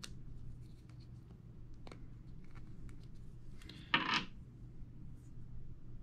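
Faint clicks and rubbing of fingers handling a plastic faucet cartridge and fitting its rubber O-ring, with one louder, brief scraping sound about four seconds in. A low steady hum runs underneath.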